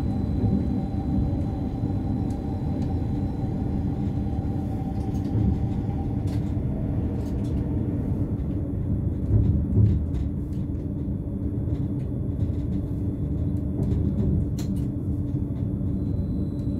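Steady running rumble of a BLS RABe 515 double-deck electric multiple unit heard from the driver's cab as it travels at speed. A faint high whine fades out in the first few seconds, and a few short clicks come from the running gear.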